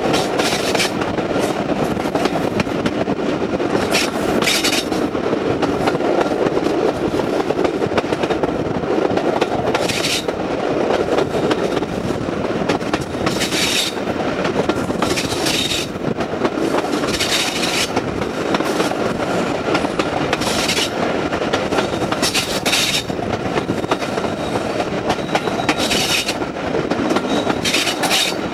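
A train running steadily along the track: a constant rumble of wheels on rail with clickety-clack, and short high hissy flares every few seconds.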